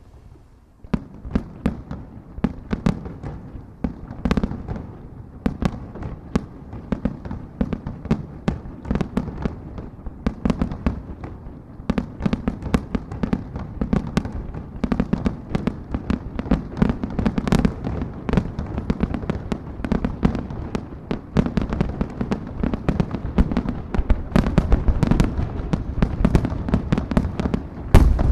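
Aerial fireworks shells bursting in a rapid, dense barrage of sharp bangs over a constant low rumble. It starts about a second in and grows faster and louder toward the end.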